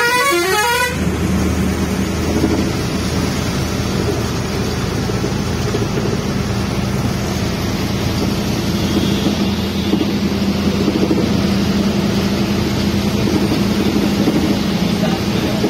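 A vehicle horn sounds a rapid repeating stepped tune and cuts off about a second in. After it comes the steady drone of the bus's engine and road noise, heard from inside the cabin.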